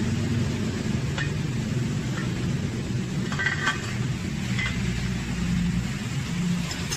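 A few light metallic clinks of a tool on an aluminium motorcycle cylinder head, strongest near the middle, over a steady low rumble.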